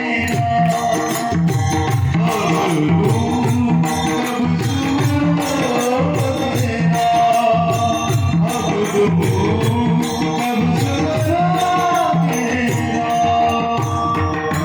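Instrumental interlude of a devotional folk song: a melody line over a bass line and steady, evenly spaced hand percussion with jingles.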